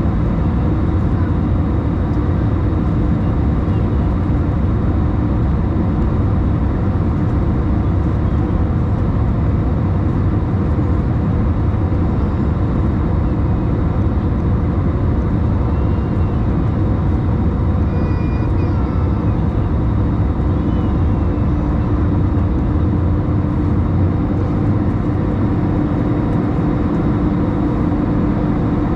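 Steady cabin noise of an Airbus A321 in its climb: an even rush of engine and airflow noise, heaviest in the low end, with a steady hum.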